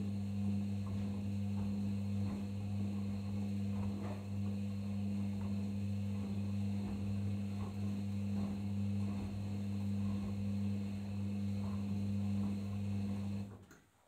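Arçelik 5083 washing machine turning its drum in the main wash of a delicates 30 °C programme: a steady motor hum with faint irregular sloshing of the wet load. It cuts off sharply near the end as the drum stops.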